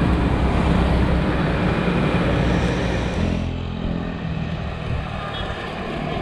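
Road noise while cycling: wind rumbling on the camera microphone together with a motor vehicle's engine passing. The rumble eases a little over three seconds in.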